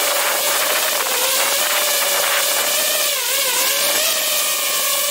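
DJI FPV quadcopter's brushless motors and propellers whining steadily in flight over a rushing hiss of air, the pitch dipping briefly about three seconds in as the throttle eases, then recovering.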